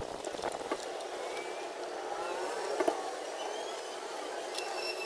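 A few small clicks and taps from a hand screwdriver working screws out of a plastic signal housing, over a steady background hum.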